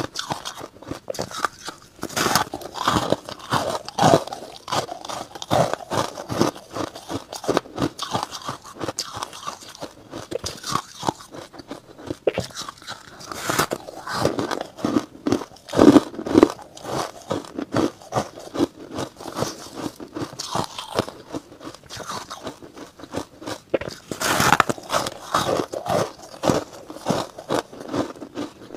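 Frosted purple ice blocks being bitten and chewed: dense sharp crunches and cracks as the ice breaks between the teeth, with louder clusters of bites now and then.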